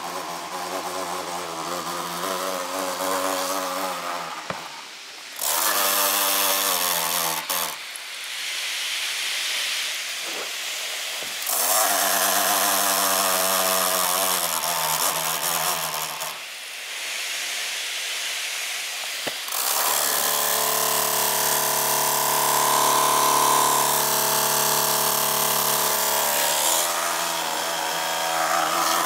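Cooling fan of an MSI GP66 Leopard laptop grinding and squealing loudly, its pitch wavering and shifting, with three surges of loud rushing noise lasting a few seconds each. The sound points to a malfunctioning fan that jams, which the owner puts down to loose fan blades or a defective unit.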